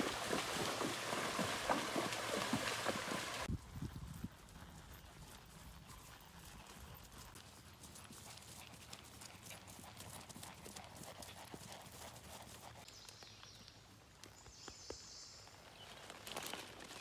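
A horse's hooves splashing through shallow creek water at a gait, with many quick strikes. This cuts off suddenly about three and a half seconds in, giving way to the much quieter, regular footfalls of the horse moving over grass.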